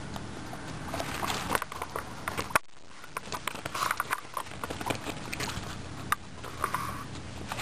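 Guinea pigs gnawing and crunching raw carrot close to the microphone: quick, irregular crisp clicks of small bites.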